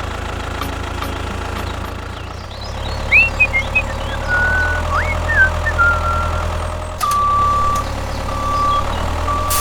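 Steady low hum of a small motor, likely a miniature model machine's. A few short chirps sound in the middle, and a held electronic beep repeats three times in the last few seconds, like a reversing alarm.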